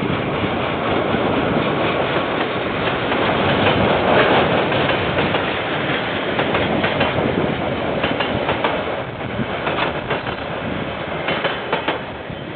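Freight train with container wagons passing: a steady rumble of wheels on rail, with clacks over the rail joints in the second half, dying away near the end as the last wagons go by.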